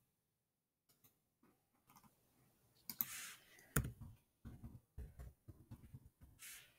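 Typing on a computer keyboard: a run of irregular key clicks beginning about two and a half seconds in, after a near-silent start. Two short hisses of breath, about three seconds in and near the end.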